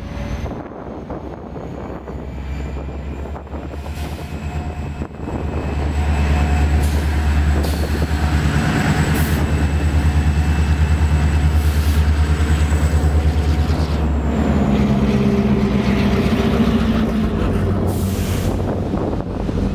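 EMD diesel locomotives, a GP40-2W and a GP38-2, running on a local freight. The engine sound grows much louder about five seconds in and changes pitch around fourteen seconds in. A thin high whine rises, holds and then falls away, and several short hisses sound along the way.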